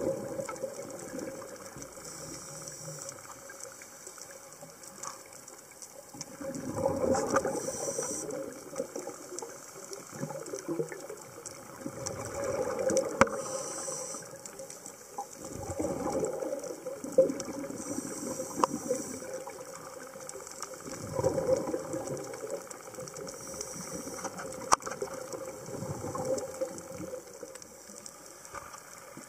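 Scuba diver breathing through a regulator underwater: a short hiss on each inhale and a rush of exhaled bubbles every five seconds or so, with a few sharp clicks between.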